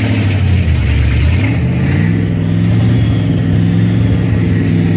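Jeep engine running hard under load as it pulls a stuck truck on a tow strap. The engine note dips briefly about a second in, then holds steady.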